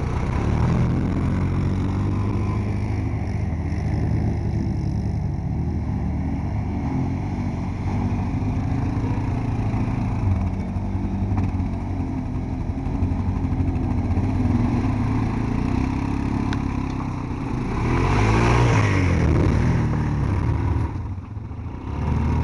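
ATV engine running as the quad drives through a shallow river, churning up spray. Near the end it gets louder, revving up and down as the quad comes close and climbs out of the water up the bank.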